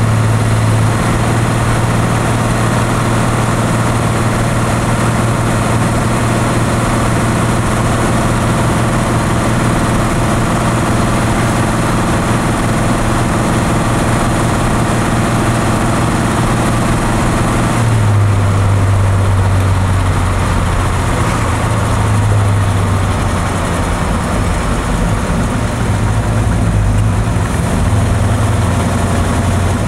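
Car engine idling steadily on a mechanical fuel pump the owner suspects is faulty; about eighteen seconds in the idle note changes, its lowest tone shifting and the higher tones dropping away.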